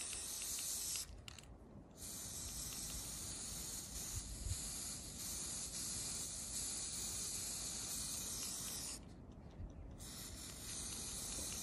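Aerosol spray paint can hissing in long sprays, stopping briefly twice: about a second in and again about nine seconds in.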